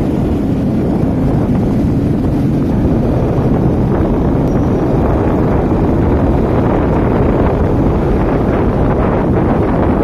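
Wind buffeting the microphone of a moving motorcycle: a steady, loud rumble and hiss that covers any engine sound.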